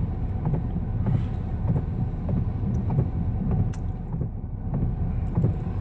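Low, steady rumble inside a car creeping along in slow traffic with its engine running, with a few faint ticks.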